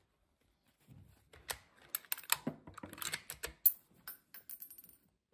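Metallic clicks and clacks of a Steyr SM12 bolt-action rifle being handled at the action, the bolt worked to clear the fired case and chamber the next .308 Win round, as a string of irregular sharp clicks with one louder clack past the middle.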